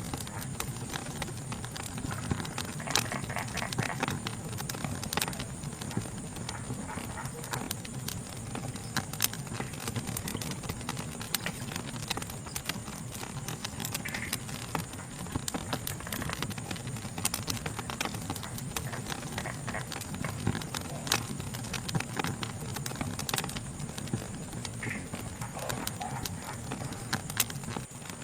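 Wood fire crackling, with sharp pops at irregular intervals over a steady low rush of burning, and a steady high-pitched insect chorus behind it.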